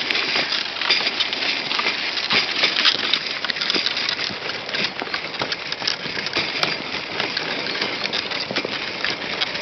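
Pram wheels rolling over a hard, snowy path: a steady crunching rattle full of small clicks and bumps.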